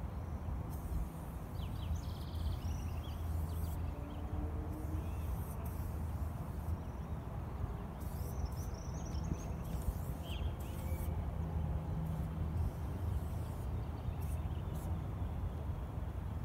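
Outdoor background: a steady low mechanical hum, with a few short bird chirps about two seconds in and again around eight to ten seconds, and brief bursts of high hiss on and off.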